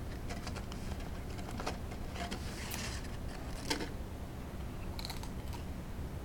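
Scattered crisp crackles and clicks of a potato chip being crunched, with one sharper snap about three and a half seconds in.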